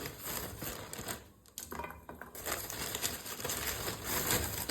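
Rustling and light clicking of kitchen items being handled, with a brief lull a little over a second in.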